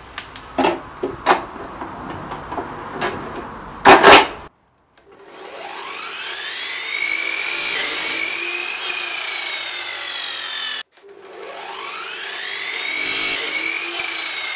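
Knocks and clanks of steel tube being laid and clamped in an abrasive chop saw, with one loud clank about four seconds in. Then the chop saw's motor spins up with a rising whine and its abrasive disc grinds through the steel box-section tube; the sound cuts off suddenly about eleven seconds in and the spin-up and cut come again.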